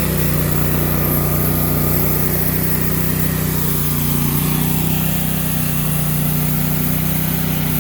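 Gasoline engine of a portable bandsaw mill running steadily at speed.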